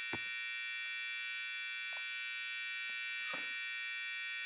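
Small piezo tweeter connected directly to wall mains, giving a steady high-pitched electric buzz as it survives the mains voltage instead of blowing. A few faint clicks, the clearest about three seconds in.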